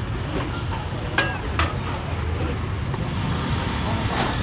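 Busy street-food stall ambience: a steady rumble of traffic with two sharp metal clinks of cooking utensils a little over a second in, the first ringing briefly.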